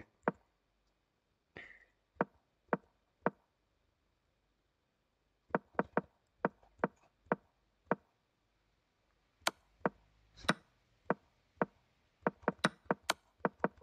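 Chess.com analysis-board move sounds: short, sharp wooden clicks, one for each move as the moves are stepped back to the starting position and forward again. They come in irregular runs about half a second apart, with pauses between.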